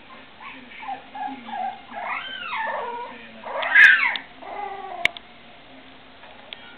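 Puppies whining and yelping in a string of squeals that rise and fall in pitch, the loudest about four seconds in. A single sharp click follows about five seconds in.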